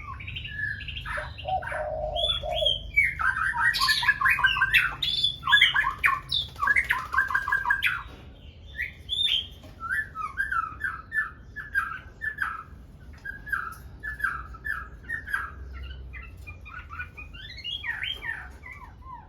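Red-whiskered bulbuls singing: a busy run of short, quick warbling and chirping phrases. The run is loudest for the first eight seconds or so, then goes on as softer repeated chirps.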